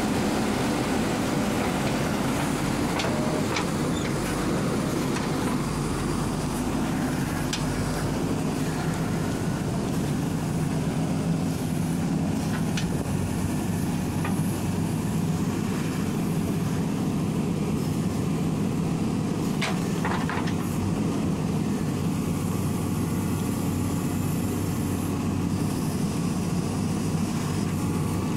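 JCB 3DX backhoe loader's diesel engine running steadily under digging load as the backhoe works the trench, with a few faint knocks from the bucket and arm.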